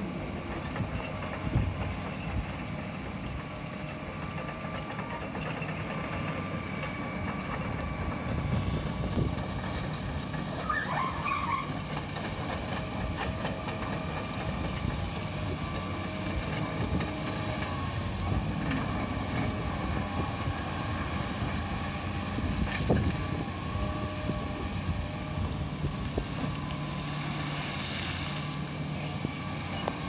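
Fiat Kobelco EX355 crawler excavator's diesel engine running steadily as the machine digs and swings in gravel. A few sharp knocks come from the steel bucket working the gravel.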